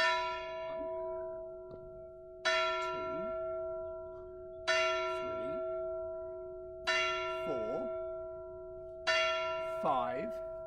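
Tower clock bell striking the hour: five slow strokes about two seconds apart, each ringing on and dying away before the next. They are part of a strike of eight.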